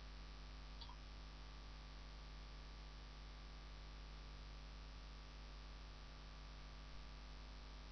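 Steady low mains hum and hiss of the recording setup, with one faint click about a second in.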